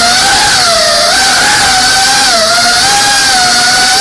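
GEPRC Cinelog 35 cinewhoop FPV drone's motors and ducted propellers whining. The pitch dips briefly about a second in and again around two and a half seconds in as the throttle eases, then holds steady.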